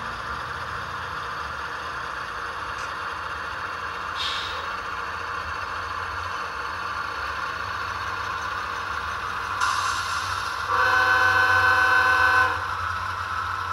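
Model diesel locomotives running slowly with a steady engine-and-motor hum, and a multi-note train horn sounding once for about a second and a half near the end, the loudest thing heard.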